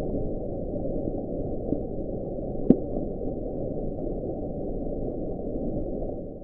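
The Bloop, an ultra-low-frequency ocean sound picked up by hydrophones, played sped up to be audible. It is a steady, low, rumbling hiss of ocean noise with one brief rising chirp about a third of the way in, and it cuts off at the end.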